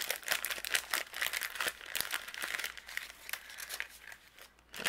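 Clear plastic packaging crinkling as a bundle of paper die-cut pieces is worked out of it, in quick irregular crackles that drop away briefly near the end.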